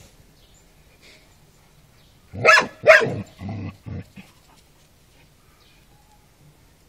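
Šarplaninac puppy barking: two loud barks about two and a half seconds in, followed by two shorter, lower barks.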